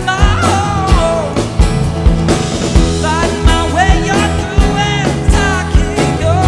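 Live rock band playing: a steady drum-kit beat with bass and guitar, and a sliding melody line on top.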